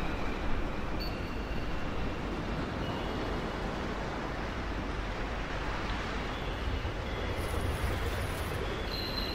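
Steady rumbling noise of a moving vehicle, with a few faint, brief high-pitched squeals over it.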